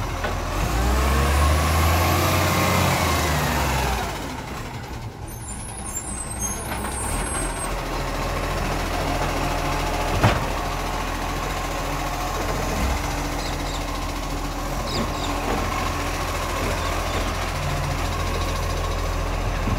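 Iveco ACCO side-loader garbage truck's diesel engine: its pitch rises and falls over the first few seconds as the hydraulic lifting arm sets the bin down, then it settles to a steady run as the truck drives off. A short sharp sound comes about halfway through.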